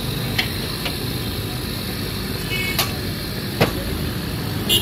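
Jalebi frying in a wide iron karahi of hot oil, sizzling steadily as batter is piped in, over a steady low rumble. A few sharp clicks come through, one near the end.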